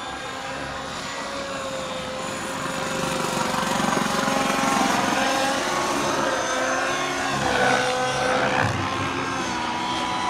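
Turbine-powered radio-controlled Bell 206 JetRanger scale model helicopter flying overhead: a steady, high turbine whine over the rotor noise, wavering slightly in pitch. It grows louder about three to five seconds in as the model passes closer.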